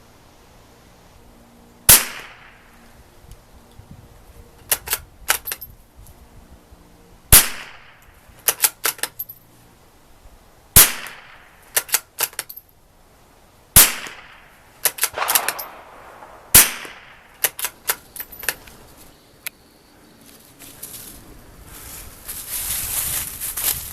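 Five single shots from a Lithgow LA101 .22 LR bolt-action rifle, a few seconds apart. After each shot comes a quick run of three or four smaller metallic clicks as the bolt is worked for the next round. A rising hiss follows near the end.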